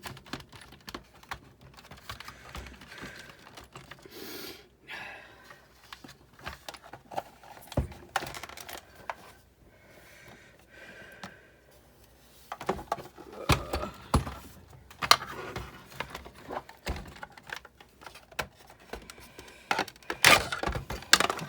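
Scattered clicks, taps and rattles of parts being handled while a Sizzix Big Shot die-cutting machine is taken apart, with louder clatters about two-thirds of the way through and again near the end.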